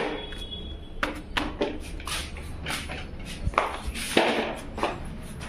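Irregular knocks and taps, several of them with a brief rustling scrape, over a low steady rumble.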